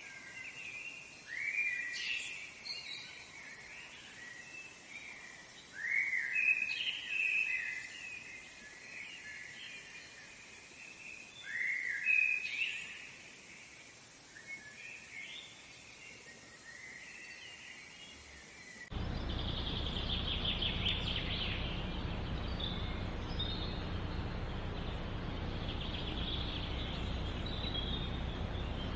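Birds calling, with three bouts of loud, sharply rising calls and softer calls between them. About two-thirds of the way through the sound cuts abruptly to a steady background noise with faint high chirps.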